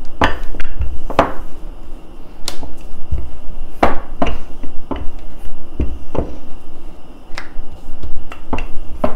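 Wooden rolling pin rolling and knocking on a hard countertop as stiff puri dough is rolled out: irregular sharp knocks, about one or two a second.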